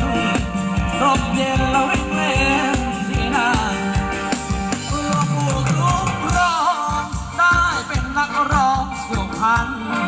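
Live band playing Thai ram wong dance music: a steady drum beat under a lead melody that bends and wavers in pitch.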